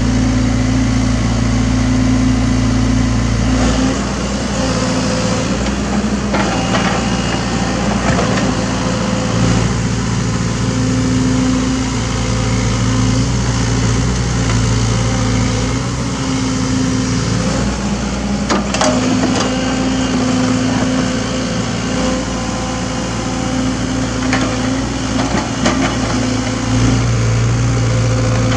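SANY SY75C mini excavator's engine running under working load while it digs soil. The engine note weakens and strengthens as the arm and bucket move, with a few sharp clanks from the bucket and linkage.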